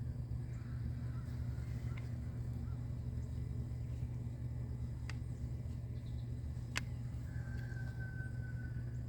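Steady low hum of an idling engine, with two sharp clicks, the second about seven seconds in.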